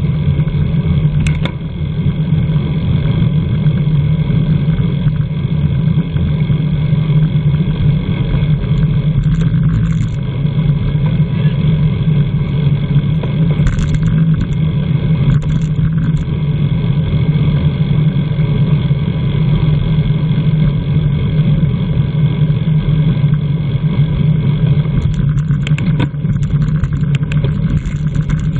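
Steady rush of wind and road noise on a bicycle-mounted camera's microphone while riding in a road race, loud and unbroken.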